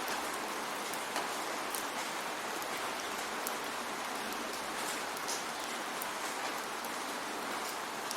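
Steady rainfall, a constant hiss of rain with many separate drops ticking sharply on a surface.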